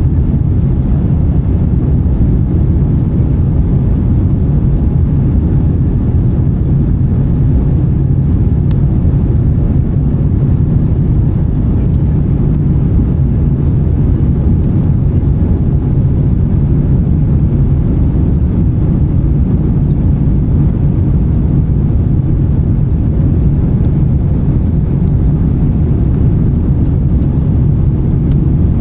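Airbus A350-900's Rolls-Royce Trent XWB engines and airflow heard inside the passenger cabin during the climb after takeoff: a loud, even, low rumble.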